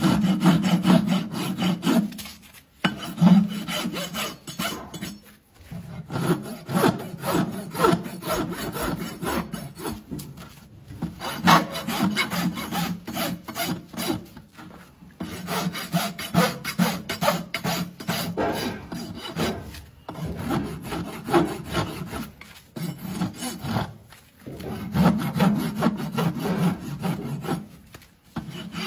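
Farrier's hoof rasp filing a horse's hoof: repeated rough scraping strokes across the horn, broken by short pauses every few seconds.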